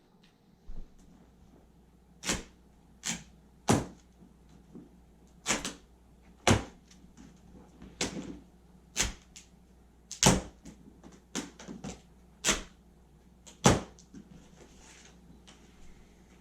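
Plastic packing straps being cut and pulled off a cardboard box: about a dozen sharp snaps and knocks at irregular intervals of roughly half a second to a second and a half.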